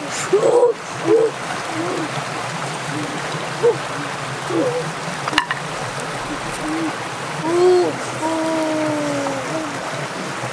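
A rocky stream running steadily, with short voice-like calls over it, one longer drawn-out call near the end, and a single sharp click about halfway through.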